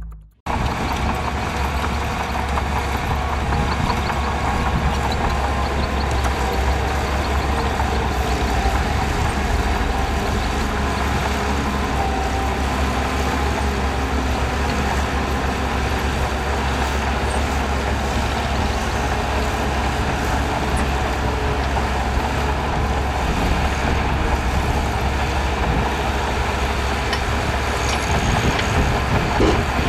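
Heavy diesel earthmoving machinery, a bulldozer working sand, running steadily with a strong low engine drone.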